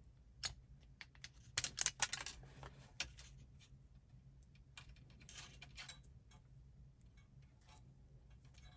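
Small clicks, taps and rustling of hands joining and handling camera power and ground wires, with a quick cluster of clicks about two seconds in and softer rustling later.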